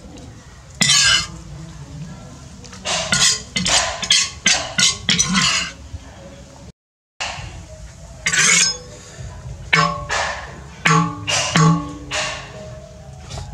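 Metal ladle scraping and clinking against a metal wok in a run of short, sharp strokes, broken by a brief silence about halfway through.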